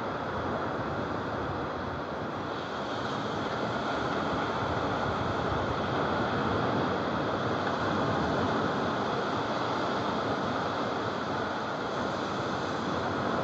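Surf breaking and washing up a sandy beach: a steady rush of waves that grows a little louder a few seconds in.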